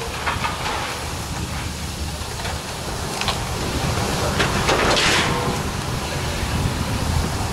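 John Deere excavator's diesel engine running steadily during demolition of a brick building, with several bursts of crashing and scraping rubble, the loudest about five seconds in.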